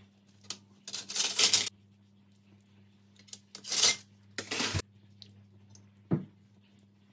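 Long metal skewers scraping and clattering against a metal baking tray and each other as marinated chicken pieces are threaded on and the loaded skewers are laid down. Three noisy scraping clatters come in the first five seconds, then a single short knock near the end.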